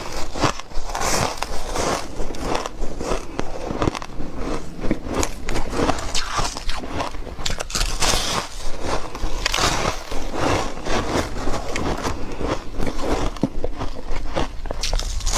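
Dry, flaky white ice being bitten and crunched, a steady run of many sharp, irregular crunches.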